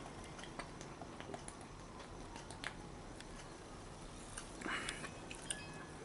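Faint mouth sounds of a person sipping and swallowing carbonated soda, with scattered small clicks and a soft swish about four and a half seconds in.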